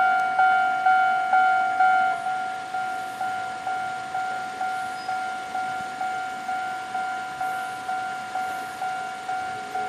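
Railway level-crossing warning bell ringing, about two strikes a second, each strike a ringing tone that fades before the next. It drops to a lower level about two seconds in.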